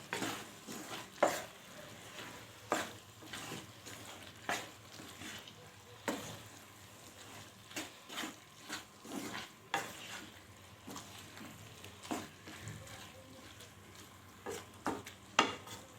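A spoon stirring a seafood filling in a pan on the heat, with irregular scrapes and taps against the pan over a faint sizzle.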